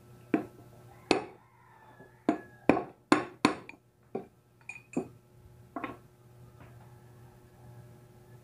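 About ten hammer blows on a steel tube used as a drift on a bicycle hub, driving the hub's cartridge bearing. They come at an uneven pace, each a sharp metallic strike with a short ring, the hardest in a quick run near the middle, and stop about six seconds in.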